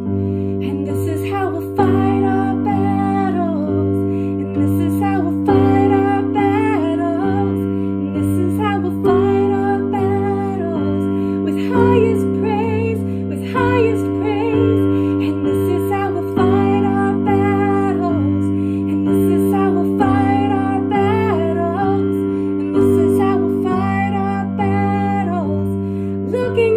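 A woman singing with her own piano accompaniment: long, wavering, gliding vocal phrases over sustained piano chords that change every second or two.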